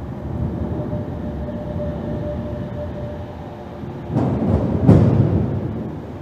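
Deep, steady rumbling, with a faint steady hum through the first half and a cluster of three heavy thuds about four to five seconds in.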